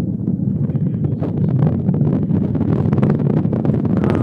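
Distant rocket launch rumbling: a steady low roar with crackling running through it.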